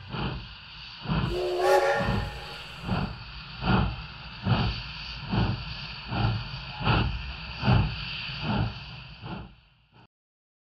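Steam locomotive chuffing slowly and evenly, a little more than one exhaust beat a second, over a steady hiss of steam, with a brief whistle about a second and a half in. The sound cuts off abruptly near the end.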